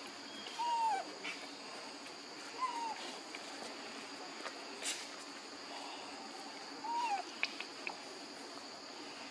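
Baby macaque calling: three short cries, each rising then falling in pitch, a couple of seconds apart. A steady high insect buzz runs underneath.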